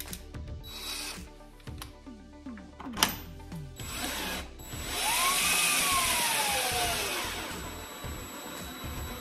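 DeWalt cordless drill/driver driving a screw: a brief burst about a second in, a sharp click about three seconds in, then a longer run of about two and a half seconds, its motor whine rising and then falling away as it slows.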